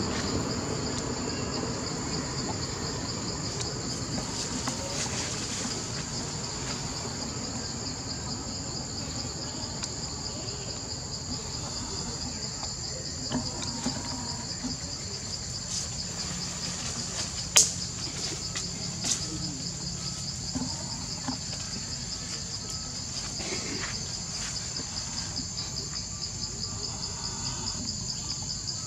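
A steady, high-pitched chorus of forest insects, with two overlapping pitches and a fast pulse. One sharp snap comes about two-thirds of the way through, with a few fainter clicks around it.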